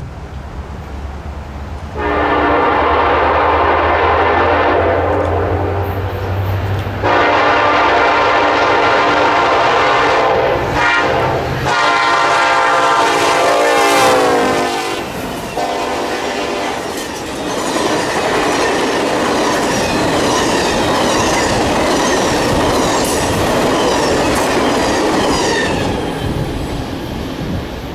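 An EMD FP9A diesel locomotive's Nathan K5LA five-chime air horn blows the grade-crossing signal of long, long, short, long over the low rumble of the locomotives' engines. The horn's pitch drops as the lead unit passes. Then the passenger cars go by with a steady clickety-clack of wheels over the rail joints.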